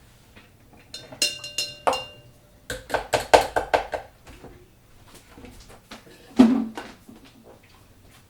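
Kitchenware clinking and knocking as a thick blended smoothie is poured from a blender jar into a glass: a ringing clink, a quick run of taps, then a heavier knock near the end.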